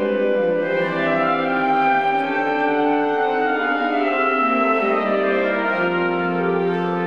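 Concert wind band playing slow, sustained chords, with clarinets, saxophones and brass holding notes that shift to a new chord every second or two.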